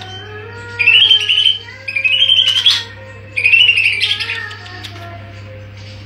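Caged green leafbird (cucak ijo) singing in full song, three loud warbling phrases in quick succession, each climbing in pitch. A steady low hum runs underneath.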